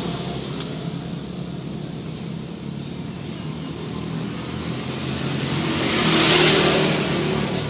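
Road traffic going by: a vehicle passes, swelling up and fading away with its loudest point about six seconds in, over a steady low hum.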